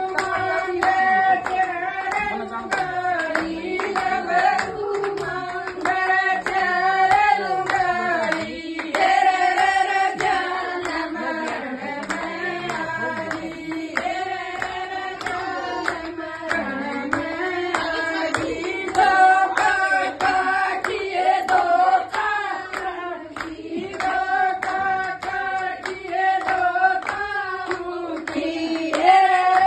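A group of women singing a folk song together, with steady hand clapping in time to the song.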